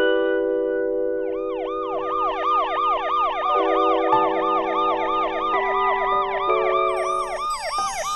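Soft sustained music chords with an emergency vehicle siren coming in about a second in, sweeping rapidly up and down over and over and growing louder.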